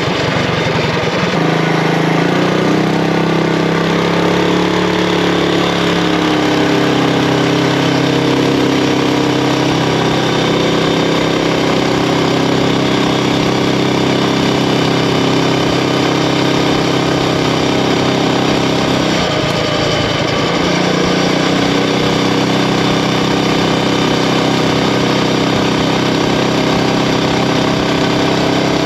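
Predator Ghost 212cc single-cylinder four-stroke engine driving a mini bike at speed, its pitch easing down in the first couple of seconds, then holding steady. About two-thirds through the revs dip briefly and pick back up.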